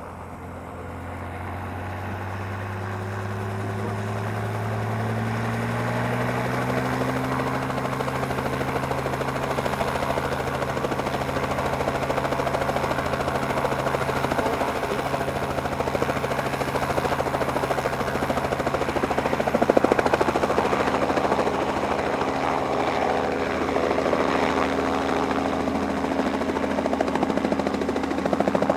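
An engine drone that climbs in pitch and loudness over the first several seconds, then runs steadily, with a brief louder surge about twenty seconds in.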